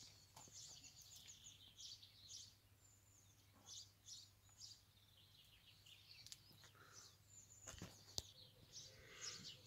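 Faint birdsong: small birds chirping and twittering off and on, with a couple of soft clicks about eight seconds in.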